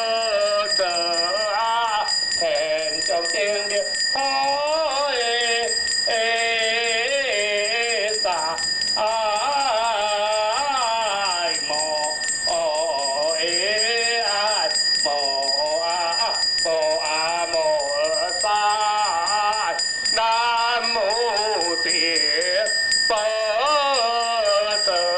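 Slow, wavering melodic Buddhist chanting, with a hand bell shaken in a fast, even rhythm under it.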